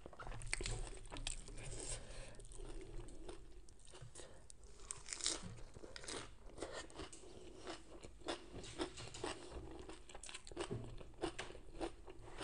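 Crunching and chewing of crisp raw lettuce and shredded kohlrabi salad eaten by hand, a run of short crackly crunches with wet mouth sounds.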